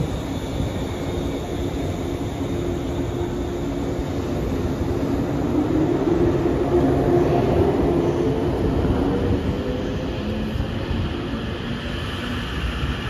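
JR 185 series electric train pulling away from a platform and gathering speed, its traction motors humming over the rumble of the wheels. The hum rises slowly in pitch and is loudest about halfway through.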